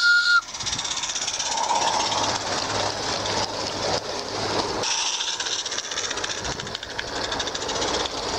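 Roundhouse VoR live-steam garden-railway locomotive. Its whistle, a steady high tone, cuts off about half a second in; then it runs past with a steady hiss of steam and rapid exhaust beats.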